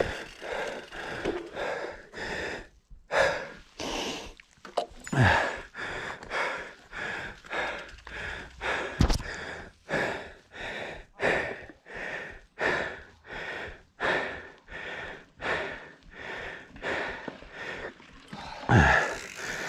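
A mountain biker breathing hard and fast, about one and a half breaths a second, panting from the effort of pedalling up a steep climb.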